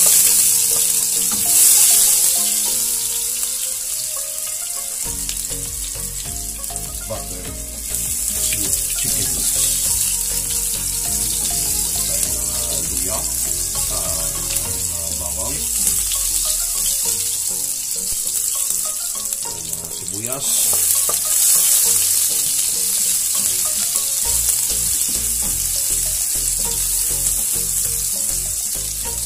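Chopped garlic frying in hot oil in a nonstick pan, a loud steady sizzle that starts as it hits the oil, stirred with a wooden spatula. The sizzle surges again about twenty seconds in as chopped red onion goes into the pan.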